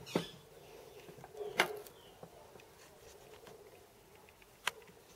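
Three sharp clicks, the first near the start, the next about a second and a half later and the last near the end, over a faint steady hum.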